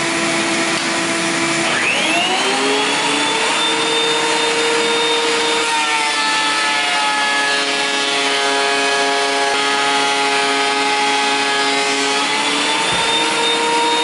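DeWalt benchtop thickness planer running as it planes a rough cedar fence board. The motor's pitch drops sharply about two seconds in, sinks lower again from about six seconds in while the board is under the cutterhead, and rises back near the end.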